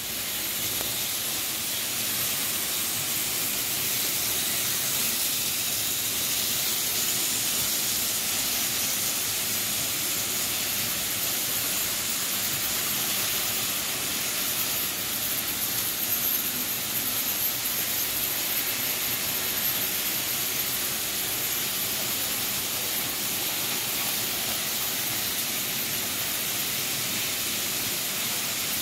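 Several Märklin HO model trains running at once on grey metal track, their small electric motors and metal wheels making a steady whirring, rolling noise.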